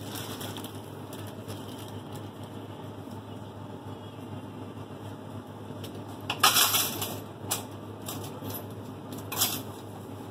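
Crinkling and rustling from paper money and plastic bags being handled, in several short bursts: the loudest about six and a half seconds in, with more near the end. A steady low hum runs underneath.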